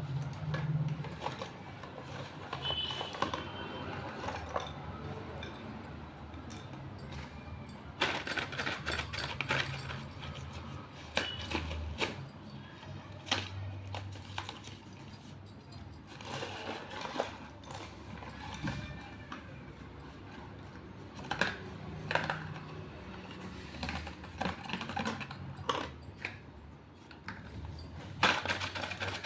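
Slate pencils clicking and rattling against one another and their box as they are handled, in irregular clusters of small sharp clicks.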